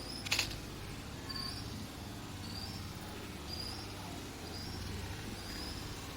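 A small animal's short, high chirps, repeating about once a second over a low hum, after a single sharp knock just after the start.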